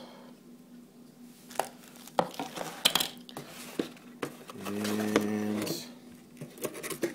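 Light clicks and knocks of a black plastic router stand and cardboard packaging being handled and set down. About five seconds in comes a steady low hum lasting about a second.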